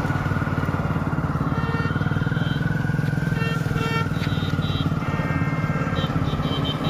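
Motorcycle engine running steadily at low speed, with faint music in the background.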